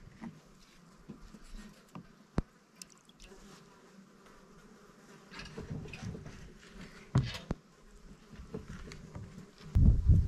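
Flies buzzing, with scattered small clicks and knocks, and a louder burst of low rumbling near the end.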